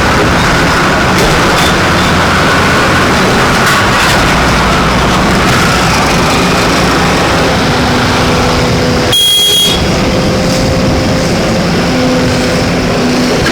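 Engine of an excavator or backhoe loader running steadily under work, loud and dense, with a brief half-second break about nine seconds in.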